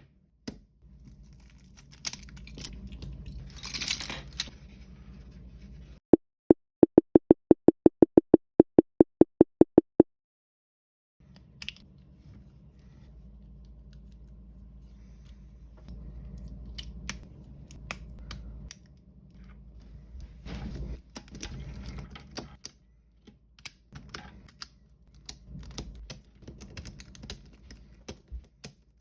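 Plastic clicking and clacking of a WeiLong V9 3x3 speedcube being taken apart by hand, pieces snapping and rattling as they come loose. About six seconds in, a loud run of evenly spaced low pulsing tones, about four a second, lasts some four seconds and cuts off suddenly.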